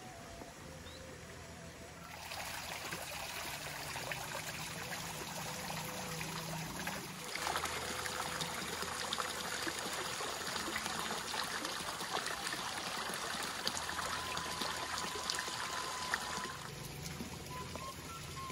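Water rushing along a small stream after heavy rain. The rush grows louder about two seconds in and again at about seven seconds, then eases off near the end.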